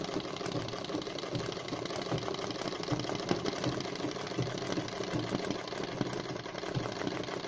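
Sewing machine from 1955 running steadily, its needle stitching in a fast, even clatter.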